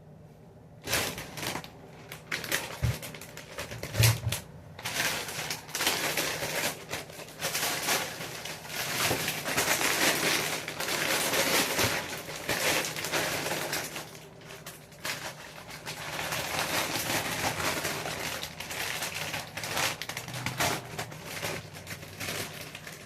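Food packages and containers being handled and moved around in a refrigerator: plastic packaging crinkling, with rapid clicks and knocks. It starts about a second in, and a couple of louder knocks come soon after.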